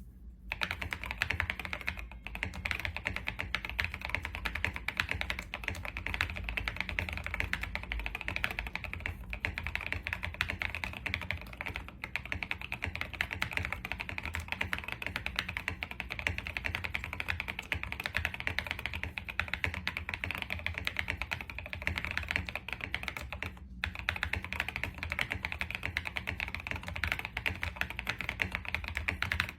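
Steady, fast typing on a Lofree DOT Foundation mechanical keyboard fitted with Gateron Baby Raccoon switches: a dense stream of key clacks with a few short pauses.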